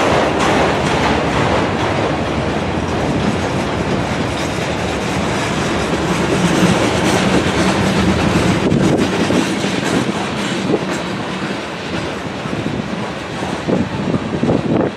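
Freight cars rolling past (autoracks, a tank car, empty gondolas): a steady rumble of steel wheels on rail, with clickety-clack over the rail joints. Sharper wheel clicks come near the end.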